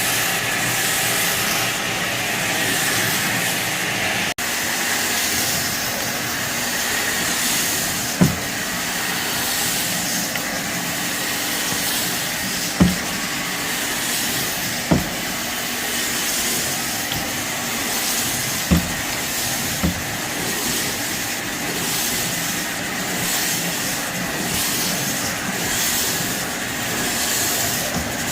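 Shark vacuum cleaner running steadily over a dirty carpet full of cat hair and debris, a constant airy hiss, with a handful of short low knocks as it is worked along.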